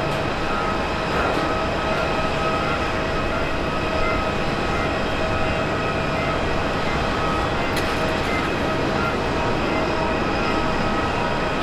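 An Airbus A330-900's twin Rolls-Royce Trent 7000 turbofans at high power on the takeoff roll: a steady jet roar with a whine of several held tones.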